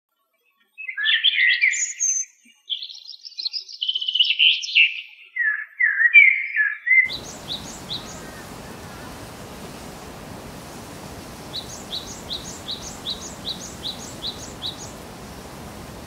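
Songbirds singing: a loud, varied warbling song with rising and falling notes for the first several seconds, then, over a steady hiss, a quick series of short, repeated falling notes, about three a second.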